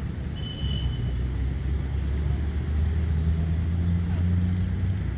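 Aircraft engines running, a low steady rumble that grows a little louder in the second half. A brief high tone sounds about half a second in.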